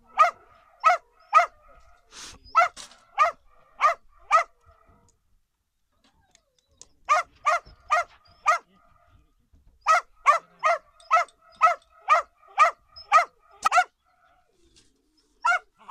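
A dog barking in runs of short, even barks, about two a second, with a few seconds' pause between runs.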